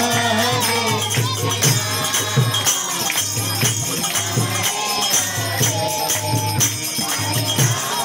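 Devotional kirtan music: a man singing a melodic line through a microphone, with small brass hand cymbals (kartals) clashing in a fast steady rhythm over a low beat.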